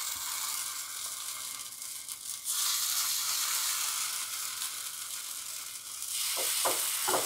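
Oil and idli batter sizzling in the hot moulds of a non-stick appe (paniyaram) pan as spoonfuls of batter are dropped in. The sizzle gets louder about two and a half seconds in and again near the end.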